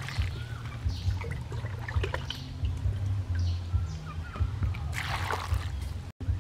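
Water poured from a jug into a metal bowl of peeled lotus seeds, splashing and trickling, with the loudest splash about five seconds in. A steady low hum runs underneath.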